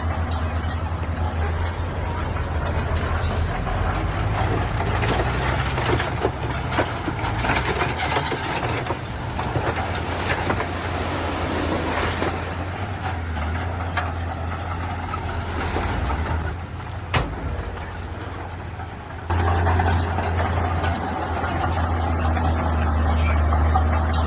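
Heavy earthmoving machinery at work: a large diesel engine running steadily under load, with scattered clanks and knocks. The level drops for a few seconds, then jumps up abruptly about 19 seconds in.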